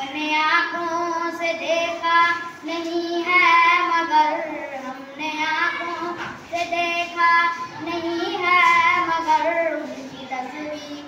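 A boy singing a naat, an Urdu devotional song, solo and without instruments, in long held, wavering notes with short pauses for breath.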